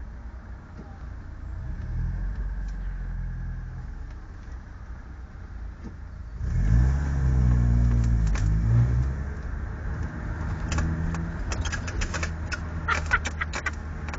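Engine of the Zeus motorcycle-and-sidecar outfit running on the road, heard from the passenger seat: a steady hum, then louder and rising in pitch as it accelerates about halfway through. A run of sharp clicks or rattles comes near the end.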